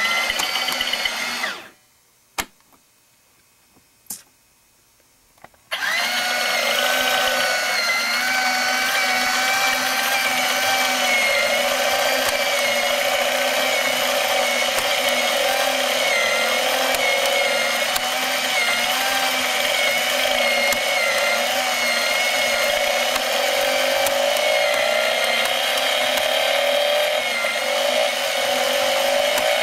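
Small electric motor of a plastic BMW R90S model engine kit driving its plastic gear train and moving parts, a steady whirring with a wavering whine. It cuts out about two seconds in, two clicks sound during the pause, and it starts again about six seconds in and runs on.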